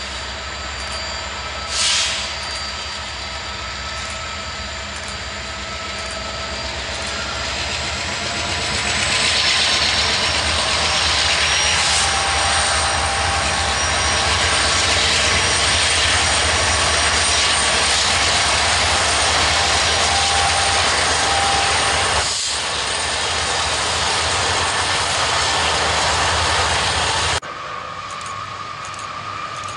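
Freight train's diesel locomotives, Norfolk Southern and Canadian National units, passing close by with their engines working hard. Steady engine tones sit over a heavy rumble that grows louder as the units go by, with a short loud hit about two seconds in. Near the end the sound cuts abruptly to a quieter, more distant train.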